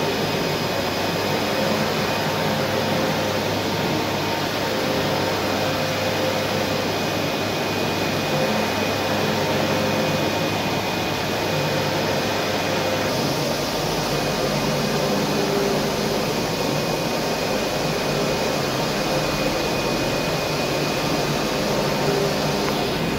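Flatbed UV printer running while it prints: a steady blowing hum from its fans and vacuum bed, with a few faint steady tones. The low part of the hum shifts about halfway through.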